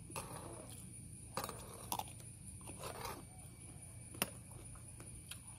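Chewing with soft mouth sounds, broken by about five sharp clicks of a metal fork and spoon against a plastic tray.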